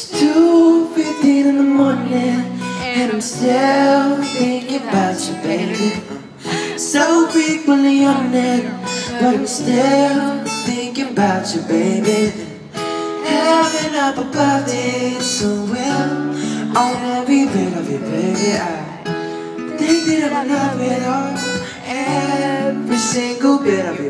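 Two acoustic guitars strummed along with a man singing a melody into a microphone, played live.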